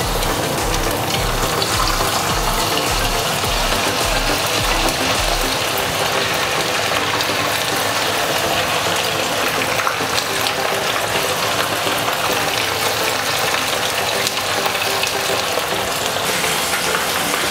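Cornflour-coated fish fillets deep-frying in hot oil in a pan: a steady, dense crackling sizzle.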